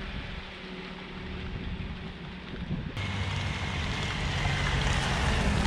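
Jeep Wrangler driving by on a road, its engine and tyres heard with wind buffeting the microphone. About three seconds in the sound jumps louder and keeps building as the Jeep comes toward the microphone.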